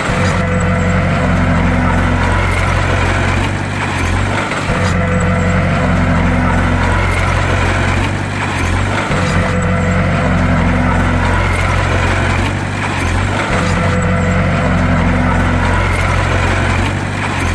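Bulldozer's diesel engine running steadily under load, with a pattern that repeats about every four seconds.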